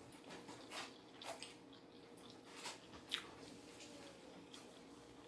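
Faint chewing of a mouthful of sushi, with a few soft wet mouth smacks.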